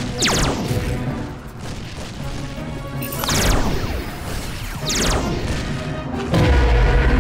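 Cartoon ray-gun zap sound effects: three quick sweeps, each falling from high to low, over background music. A loud low boom begins near the end.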